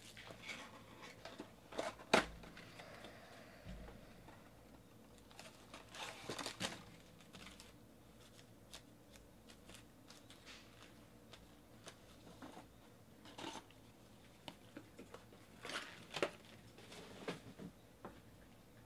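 Cardboard trading-card hobby box and its foil packs being handled and set down on a table: scattered rustles, taps and light knocks, with one sharp knock about two seconds in.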